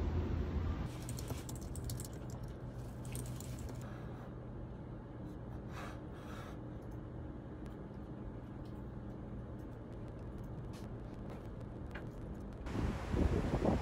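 Quiet office room tone: a steady low hum with scattered light clicks, taps and rustles as a spiral notepad and a pen are handled on a desk. Louder street noise with wind comes in near the end.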